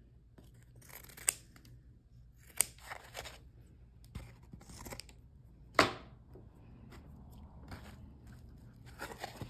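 Scissors snipping through excess fur fabric: several separate short, sharp cuts, the loudest about six seconds in.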